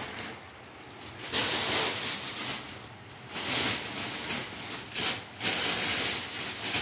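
Rustling and rubbing handling noise, heard in several spells a second or so long, as dry food and its containers are moved about.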